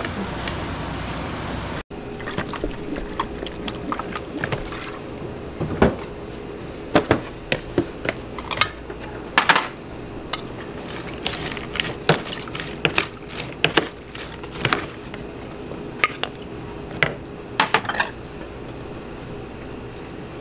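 Ladle working in a plastic tub of sliced onions and green chilies in soy sauce: liquid pouring, with irregular clinks and knocks of the ladle against the tub and the small serving bowls.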